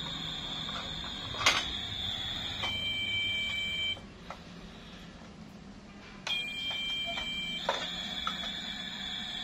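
A steady high-pitched electronic tone, joined twice by a lower two-note tone, with a few light clicks. Everything drops away for about two seconds in the middle.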